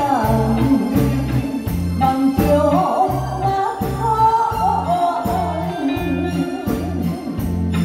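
A woman singing a ballad into a microphone over amplified band accompaniment with a steady bass beat.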